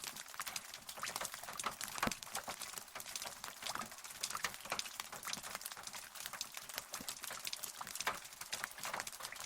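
Rain pattering, a dense, irregular stream of sharp drop ticks over a light hiss, with no thunder.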